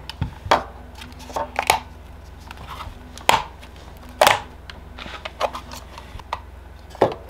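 Irregular knocks and clicks as the plastic case and shrink-wrapped cell pack of a 12 V LiFePO4 battery are handled and pulled apart on a workbench.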